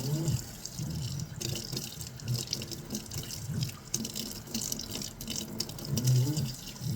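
Sink faucet running, water splashing and dripping as a cat's fur is rinsed under it. Short low voiced sounds come now and then, the loudest about six seconds in.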